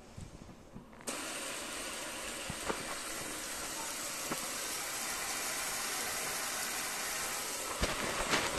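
Brizo 64025LF pull-down kitchen faucet turned on about a second in: a steady stream of water runs from the spray head into a white sink and down the drain, with an even hiss.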